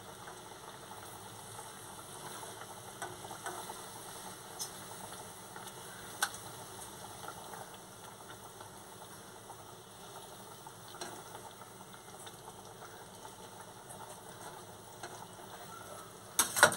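Curry gravy simmering in an aluminium kadai with a steady soft bubbling sizzle, and a few faint clicks as stuffed fried pointed gourds are set into it. Two sharper knocks come near the end.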